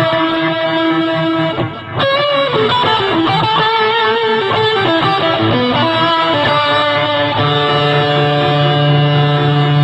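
Electric guitar played through a custom fuzz-and-reverb pedal (RamsHead fuzz with two experimental reverbs). A held note fades out, a new phrase starts about two seconds in with notes stepping downward, and it settles into a sustained chord for the last couple of seconds.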